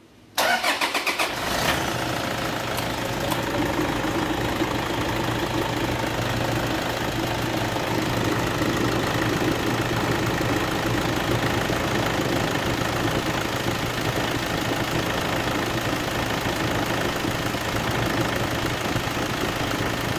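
Toyota D-4D four-cylinder turbodiesel cranked briefly and catching about half a second in, then idling steadily while it drives the power steering pump during a fluid flush.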